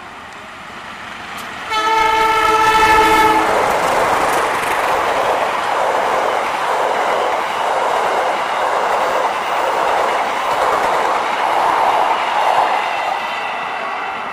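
KAI diesel-electric locomotive sounds its horn once, about two seconds in, in a chord of steady tones lasting about a second and a half. Then the locomotive and its passenger coaches pass at speed, the wheels running and clattering on the rails, loud until near the end, then fading.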